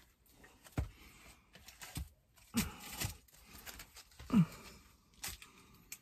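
Footsteps and scuffing on a rocky cave floor as a person squeezes along a narrow passage, with several sharp knocks of gear against rock and a short grunt of effort about four seconds in.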